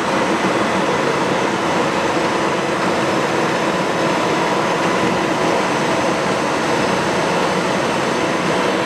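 Leblond 3220 heavy-duty engine lathe running under power: a steady mechanical running noise with faint steady whine tones, unchanging in level.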